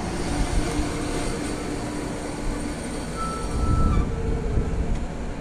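Amtrak stainless-steel passenger coaches rolling slowly past as the train pulls into the station: a steady rumble of wheels on rail with faint squealing tones, growing louder about three and a half seconds in.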